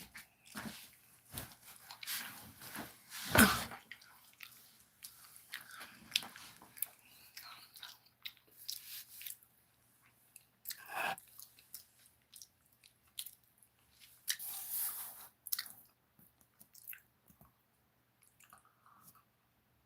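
Close, irregular mouth sounds of drinking: wet smacks, clicks and swallows, with louder ones about three and a half seconds in and about eleven seconds in. A faint steady low hum runs underneath.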